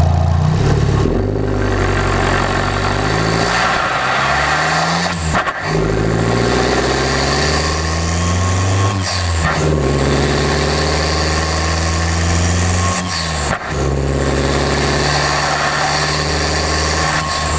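Abarth 595 Competizione's tuned 1.4-litre turbocharged four-cylinder engine and exhaust under acceleration, the pitch climbing slowly through each gear, with three brief breaks for upshifts.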